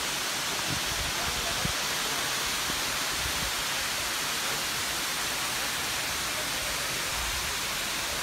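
Waterfall rushing steadily: an even hiss of falling water that holds at one level throughout.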